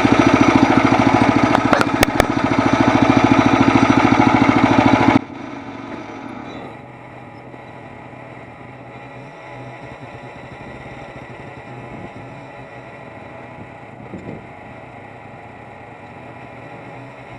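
Gasoline engine of a Frontier OS23 portable bandsaw mill running loud and steady, with two sharp clicks about two seconds in. About five seconds in the sound cuts off abruptly to a much quieter, steady engine hum.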